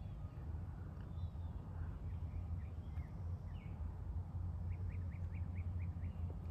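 Birds chirping outdoors: scattered short chirps, then a quick run of about seven rising chirps in the second half, over a steady low rumble.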